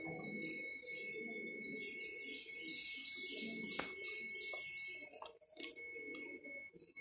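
Small birds chirping in a quick series for a few seconds over a steady high whine, while a soft grass broom swishes across a tiled floor. A single sharp click near the middle.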